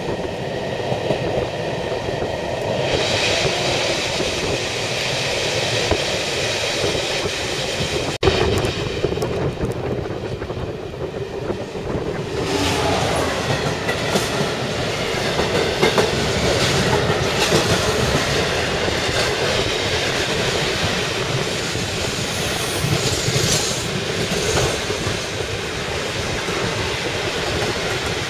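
Train running along the tracks, heard from inside a passenger carriage: a steady rumble with clickety-clack of wheels over rail joints. It grows louder and brighter about three seconds in and again about twelve seconds in.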